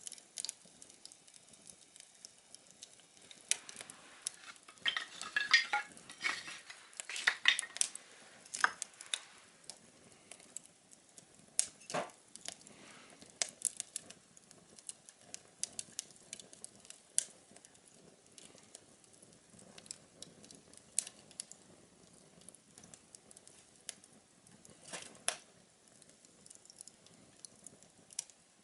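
Small wood fire burning in a homemade tin-can stove, crackling with many sharp pops and clicks, busiest in the first third, then a few single louder pops.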